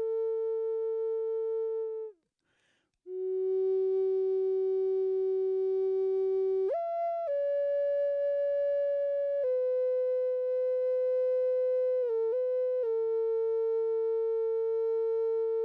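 Flute playing a slow, meditative melody of long held notes. There is a short pause for breath about two seconds in, a brief higher note about halfway, and a quick little dip in pitch near the end.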